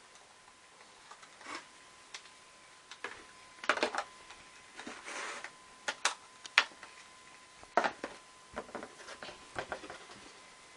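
Handling of the cat-ear headphones and their packaging: irregular clicks, taps and short rustles. A faint steady high tone runs underneath.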